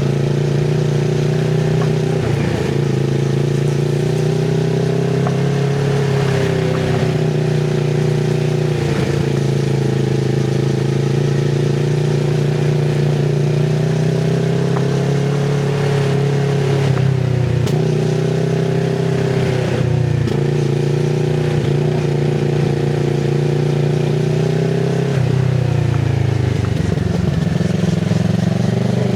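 Kawasaki Z650RS parallel-twin engine running through an IXIL MK2 full exhaust with its dB killer fitted. It stays at low, fairly steady revs, the pitch rising and falling gently, with a few brief dips as the throttle is eased off and picked up again.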